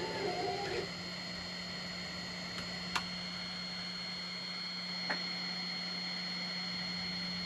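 Monoprice Select 3D printer's stepper motors whining in shifting pitches, falling silent about a second in, leaving only the steady hum of the printer's fans and two faint clicks. The print has halted partway through, which the maker puts down to an error in the model.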